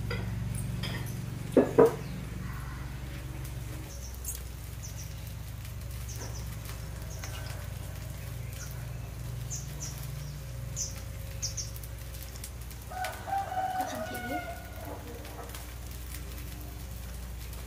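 Domestic chickens: two short loud sounds about a second and a half in, then a rooster crowing about thirteen seconds in, over a steady low hum.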